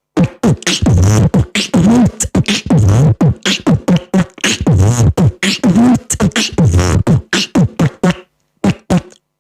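Human beatboxing: a fast, continuous run of mouth-made kick and snare hits with hissing hi-hat strokes, broken up by pitched bass sounds that dip and rise about four times.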